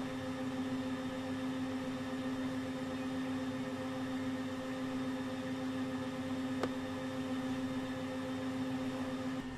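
Safari vehicle's engine idling with a steady, even hum, with one faint click about two-thirds of the way in.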